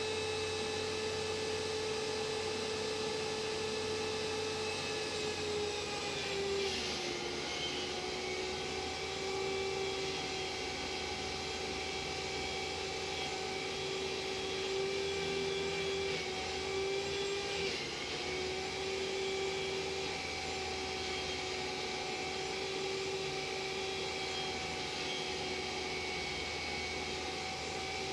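Table saw running with a steady motor whine, its pitch sagging briefly about seven seconds in and again around seventeen seconds as it cuts sanded plywood.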